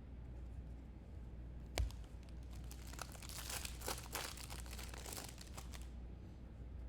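A trading-card pack's wrapper crinkling as it is handled and torn open, starting with a single click about two seconds in.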